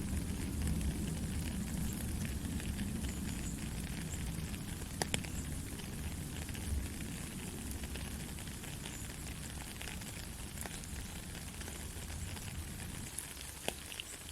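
Steady rain with a dense hiss and scattered sharper drop ticks, a low rumble fading out near the end.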